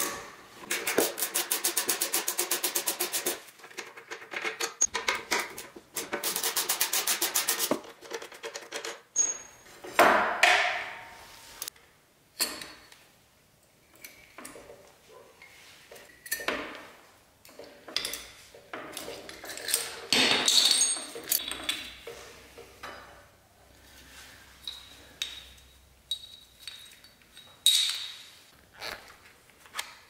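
Ratchet wrench clicking rapidly in two runs of about two seconds each as the front brake caliper bolts are spun out. Then scattered metallic clinks and knocks as the caliper and its brake pads are handled.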